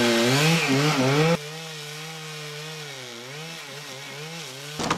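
Chainsaw engine running hard as it cuts into a tree trunk, its pitch wavering under load. About a second and a half in it drops suddenly to a quieter, more distant chainsaw sound that keeps wavering.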